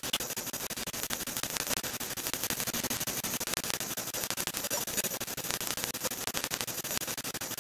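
Steady crackling static over a hiss, a dense stream of fine ticks that does not change, with no distinct machine hum or voice.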